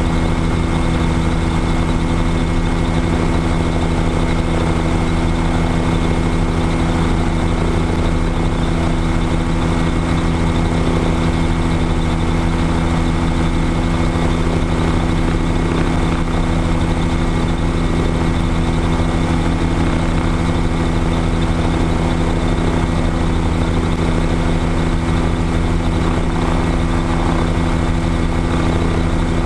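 Light aircraft's engine and propeller running steadily at idle while the plane stands still, heard close-up through a camera mounted on the tail.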